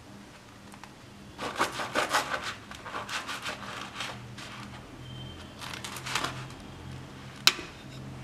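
A knife sawing through a toasted bread sandwich, the crust crunching and rasping in quick strokes about a second and a half in and again around six seconds in, with one sharp click near the end.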